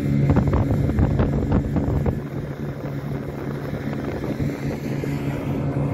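Rys snowmobile engine running steadily at travelling speed, heard from the towed sled, with wind buffeting the microphone. A few knocks and rattles come in the first two seconds as the sled jolts over the ice.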